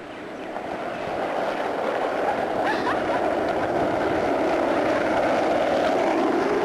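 Skateboard wheels rolling on asphalt: a steady rumble that builds over the first two seconds and then holds.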